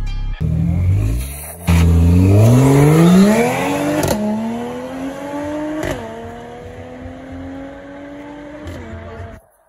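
Car engine accelerating hard and revving steeply upward. It shifts up a gear with a short crack about four seconds in, again about six seconds in, and once more near the end, fading as it goes.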